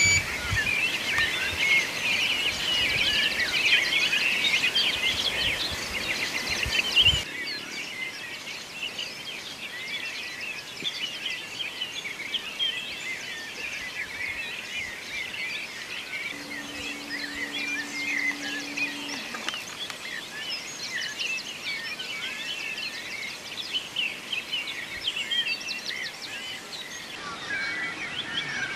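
Dawn chorus of many songbirds chirping and singing together, louder for the first several seconds and then fainter.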